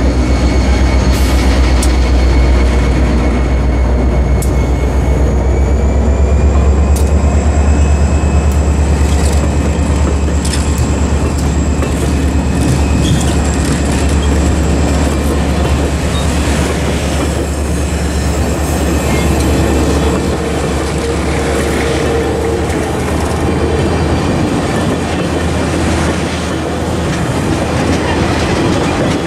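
Passenger train rolling past close by. The diesel locomotive's engine runs low and heavy and eases off after about twenty seconds, while the passenger cars' wheels click over the rail joints. A few steady high whining tones sit above it.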